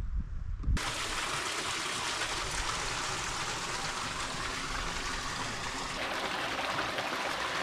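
Small woodland stream trickling and splashing over rocks through a narrow rock channel, a steady rush of water. It cuts in suddenly under a second in, after a few low thumps.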